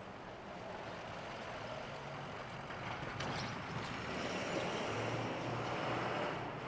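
A heavy vehicle drawing nearer, its engine rumble and running noise slowly growing louder, with a brief hiss about three seconds in.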